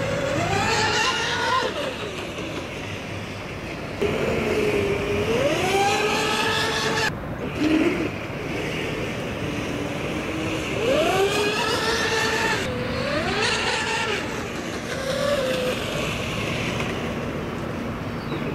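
Twin Sirius 1500kV brushless motors of an RC catamaran, each on 6S, whining as the boat runs on the water, their pitch rising and falling again and again as it accelerates and throttles back. The sound changes abruptly about four and seven seconds in.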